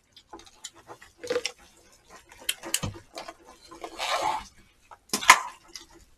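Chopsticks clicking and scraping in disposable plastic takeout bowls as jjajangmyeon noodles are mixed, with a short rustling burst about four seconds in and a sharp clack just after five seconds.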